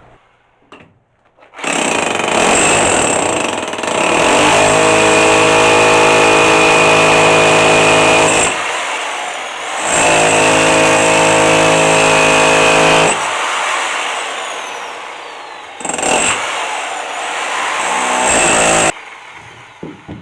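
Hand-held electric power tool working on a stone to cut it down, running in several spells with a steady high whine. A deeper steady drone comes in while it bears hardest on the stone, from about 4 to 8 s and again from about 10 to 13 s. It drops off briefly twice and stops about a second before the end.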